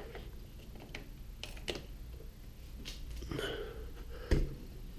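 A few small clicks as the newly installed LED lights on a zero-turn mower are switched on, then one sharper knock near the end, over a low steady hum.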